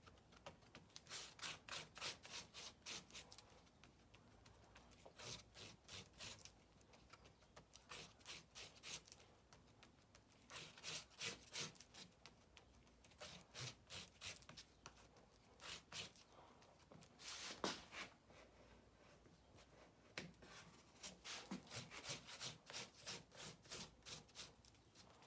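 Palette knife scraping and smearing Bondo body filler as hardener is mixed into it, in runs of short quick strokes, about three a second, with short pauses between runs.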